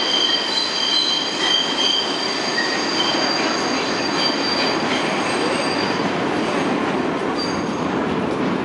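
R62A subway cars' wheels squealing on the curved loop track as the train pulls away, several high squeals that fade out after about three seconds. A steady rumble of wheels on rail carries on underneath.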